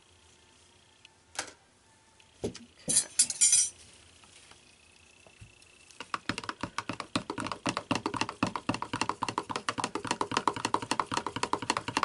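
A thin metal spoon stirring soap batter in a plastic measuring jug, clicking rapidly and steadily against the jug's sides from about halfway through. Before that come a few knocks and a short loud clatter as utensils and containers are handled.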